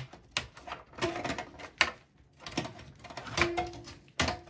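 Power-cable connectors being unplugged from a PC motherboard, with the wiring handled. Sharp plastic clicks come about half a second in, near two seconds and near the end, with rustling and rattling of the wires between them.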